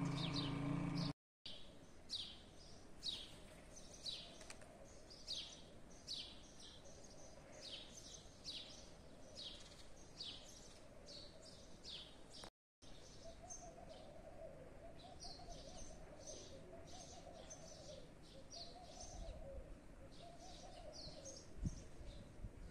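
Small birds chirping outdoors: a run of short, high, downward-sliding chirps, about one or two a second, over faint outdoor background noise. A lower wavering call joins in the second half.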